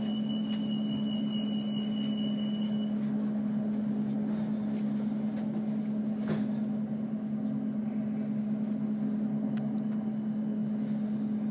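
Steady low hum of a train's onboard equipment, heard inside the passenger carriage while the train stands at the platform, its pitch unchanging. A high steady beep sounds over it for about the first three seconds.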